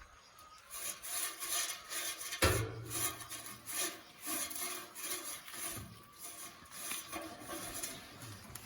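Repeated rasping, scraping strokes of hand work, with one sharp knock about two and a half seconds in.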